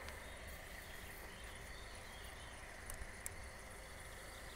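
Faint outdoor background with a low, steady rumble and a thin steady high tone, broken by two light clicks about three seconds in.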